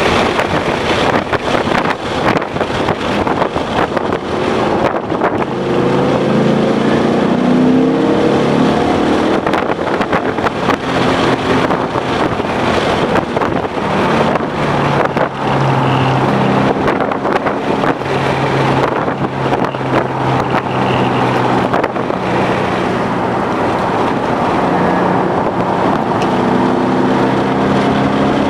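2011 Ford Mustang GT's 5.0-litre V8 running hard at track speed, its pitch climbing as it revs out a few seconds in and again near the end, under steady wind noise on the microphone.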